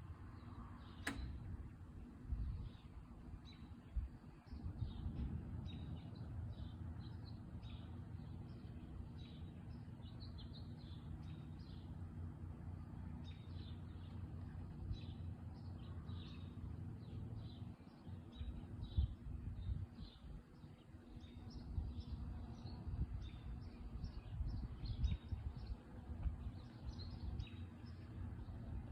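Small birds chirping over and over, over a low, uneven outdoor rumble, with one sharp click about a second in.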